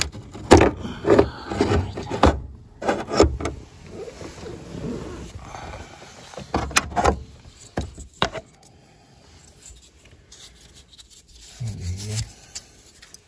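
Handling noises in a cramped space: rubbing and scraping with many sharp plastic clicks and knocks, busiest in the first few seconds and again about seven seconds in, then quieter.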